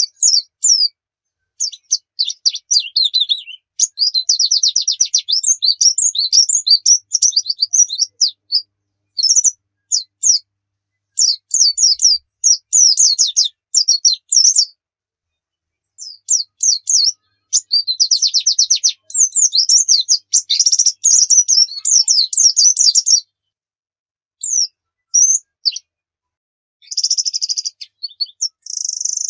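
White-eye (pleci) song: rapid, high-pitched twittering phrases and trills, broken by short pauses.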